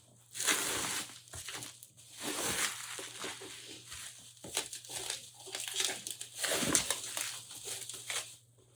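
Plastic packaging crinkling and rustling as it is handled and pulled open, in several irregular spells.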